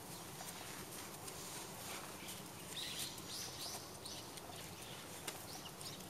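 Faint bird chirps over steady outdoor background noise: a quick run of about five short, high chirps a few seconds in and two more near the end, with a few soft ticks.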